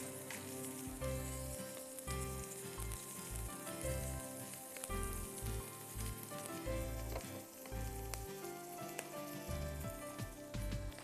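Diced onion and garlic sizzling steadily as they sauté in hot cooking oil in a wok, stirred with a spatula.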